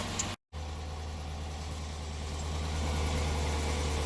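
2014 Jeep Grand Cherokee's 5.7-litre Hemi V8 idling steadily, running after a no-crank fault was cleared by reseating the starter's wire connector. The sound drops out completely for a moment about half a second in.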